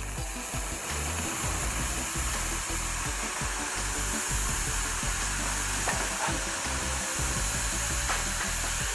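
Homemade propane-tank metal-melting furnace running during a melt: a steady hissing, rushing roar with a low rumble underneath.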